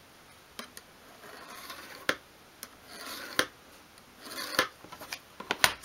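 Flat screwdriver tip drawn along a steel rule to score a groove into a thin wooden sheet: three scratchy strokes, each ending in a sharp click, with a few more clicks near the end.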